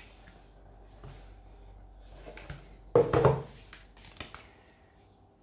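Comic books and their box being handled: faint rustling and light taps, with one louder knock about three seconds in.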